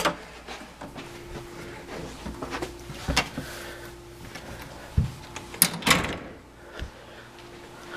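Hotel room door being opened and let shut: scattered clicks and knocks of the handle and latch, the loudest a pair of knocks about six seconds in, over a faint steady hum.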